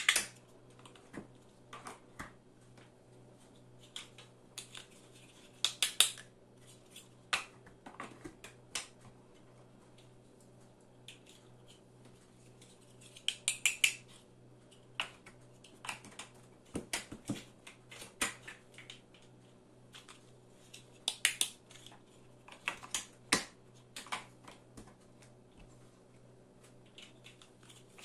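Large plastic building blocks clicking and knocking together as they are handled and pressed into place by hand: irregular clusters of sharp clicks with pauses between.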